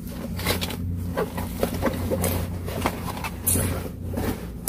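Gulls calling a few short times over a steady low hum, with scattered small clicks and knocks.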